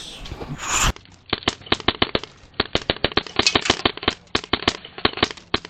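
Airsoft rifles firing rapid volleys of sharp clicking shots, starting about a second in after a sudden change in the sound.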